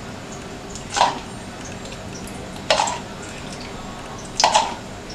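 A spoon scooping ghee from a plastic tub into a nonstick frying pan, knocking and scraping three times, each about a second and a half apart.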